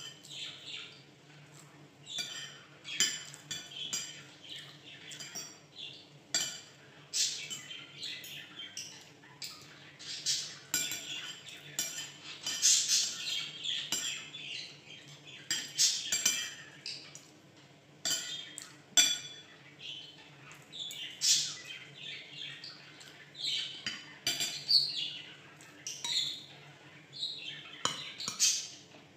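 A pet bird chirping and squawking over and over, with a spoon and fork clinking and scraping against ceramic bowls.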